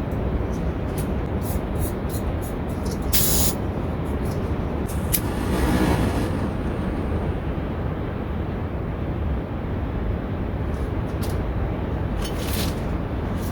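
Steady low rumbling wind noise on the microphone, with scattered small clicks and two brief rustles of the camper handling and opening his gear box, at about 3 and 6 seconds in.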